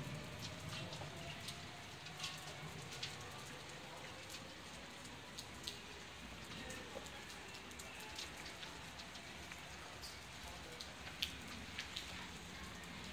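Light rain: a steady hiss with scattered, irregular drops tapping.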